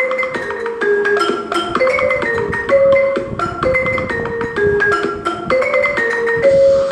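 Marimba played with mallets: a quick melodic riff of separate struck notes, each ringing briefly, with the same short phrase played twice.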